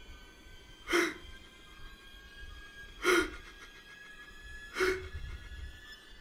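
A man crying, drawing three sharp sobbing gasps about two seconds apart.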